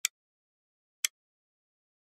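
Countdown timer ticks: a sharp click once a second, twice here, with silence between.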